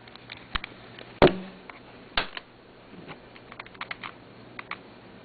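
Scattered sharp plastic clicks and taps, like keys being pressed and a Rubik's cube being handled. The loudest is a single knock about a second in, another follows a second later, and a quick run of lighter clicks comes in the second half.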